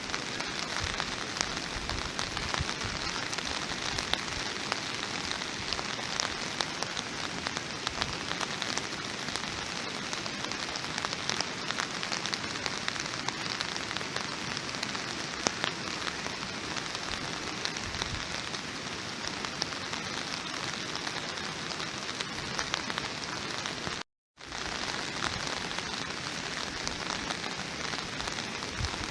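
Steady rain with a dense patter of individual drops striking a surface. The sound cuts out completely for a fraction of a second about 24 seconds in, then resumes.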